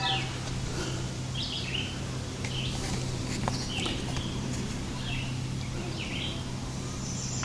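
Small birds chirping, a string of short calls every half second to a second, over steady outdoor background noise with a faint low hum.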